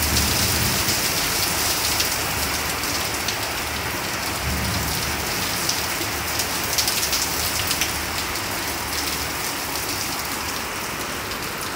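Heavy rain pouring onto a paved driveway, a steady hiss of splashing with a few sharp ticks.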